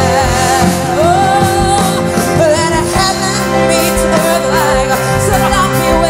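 Live gospel worship song: a woman singing with vibrato over held keyboard chords and bass.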